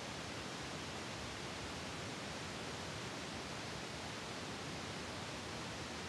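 A steady, even hiss, with no other sound in it.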